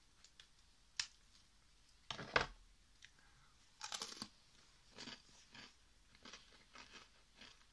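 Crisp vanilla-filled wafer crunching as it is cut and eaten: a sharp click about a second in, a loud crunch about two seconds in and another near four seconds, then a run of softer crunches every half second or so, as of chewing.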